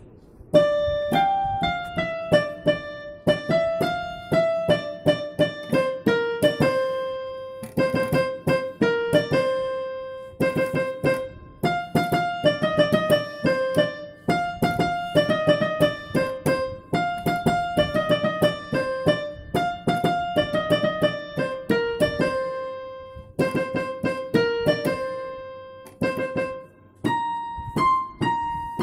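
Background music: a piano or electric-piano melody of quick struck notes.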